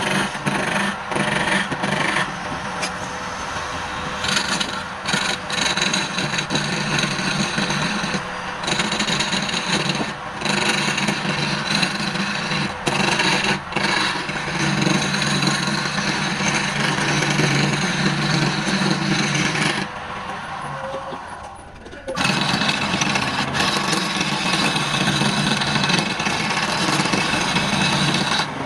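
Wood lathe spinning a palm-wood bowl blank while a turning tool scrapes and cuts the wood in a continuous noisy rasp over the motor's steady hum. About 20 s in the cutting stops for two seconds, leaving only the hum, and then it starts again.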